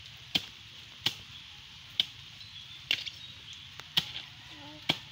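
Six sharp chopping strikes, a little under a second apart, into the soft, rotted trunk of a sago palm, breaking it open for the grubs inside.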